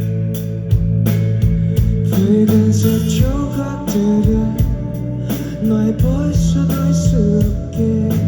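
Live rock band playing: a steady drum beat, sustained bass notes and guitar, with a sliding melody line on top.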